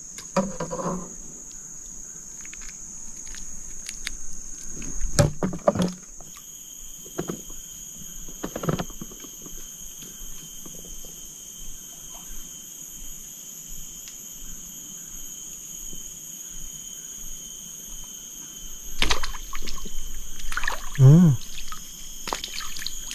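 Steady high-pitched shrilling of insects, crickets, with scattered knocks and some sloshing of water; a busier patch of knocks and splashing comes near the end.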